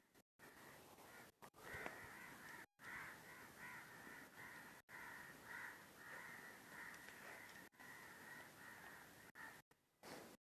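Faint, continuous calling of animals or birds, cut off briefly several times by dropouts in the sound.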